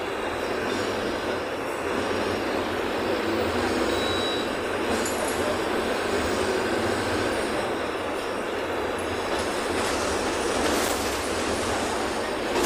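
Steady running noise heard from inside a moving city bus: engine and road noise.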